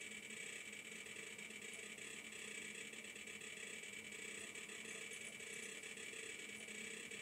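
An HDD clicker's small speaker giving dense, faint ticking as the SD-card storage is accessed, imitating a hard drive seeking. Under it runs the steady whir of an old PC's fans and power supply.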